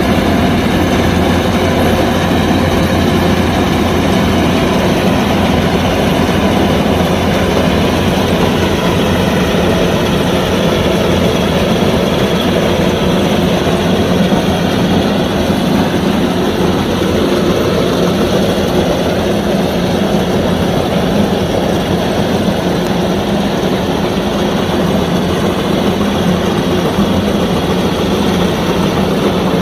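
Kubota DC105X combine harvester running steadily while harvesting rice: a continuous diesel engine drone mixed with the noise of its threshing machinery, shifting slightly in pitch about halfway through.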